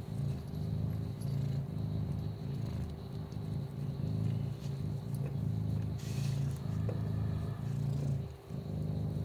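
Ginger kitten purring steadily. The purr swells and fades about once a second with its breathing, with a brief break near the end.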